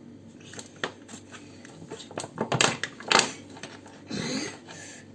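Kitchen handling: several sharp knocks and clinks of containers and utensils being moved about, with a short scraping rustle about four seconds in.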